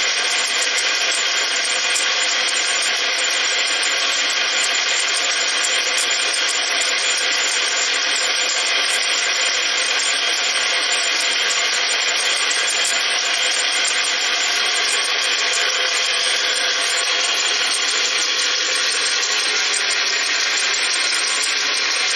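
Tiny model band saw running steadily, its small battery-powered DC motor and 3:1 spur gear reduction giving an even whir.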